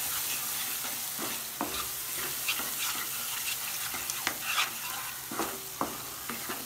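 Tomatoes and dabeli masala sizzling in hot oil in a kadai, stirred with a wooden spatula that scrapes and knocks against the pan now and then. They are being sautéed until the raw tomato taste cooks off.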